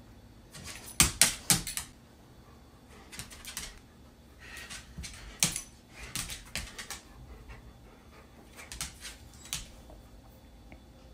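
Claws clicking and tapping on a hard floor in several short flurries as an adult golden retriever paws at and steps around a puppy.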